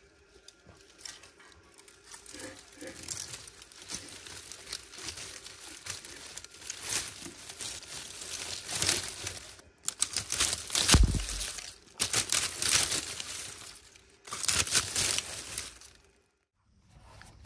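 Dry cotton stalks rustling and crackling as an armful is crammed into a clay tandoor and set alight, the crackle growing denser as the fuel catches. A dull thump about eleven seconds in.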